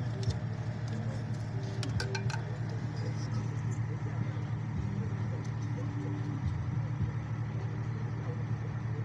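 Steady low rumble of a motor vehicle, with a few sharp clicks about two seconds in.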